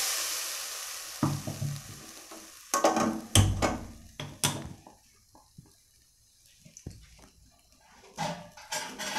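Steel mixer-grinder jar knocking against an aluminium kadai as ground masala paste is emptied into it: a fading hiss at the start, then clanks and thumps about one, three and four and a half seconds in, with a few lighter knocks near the end.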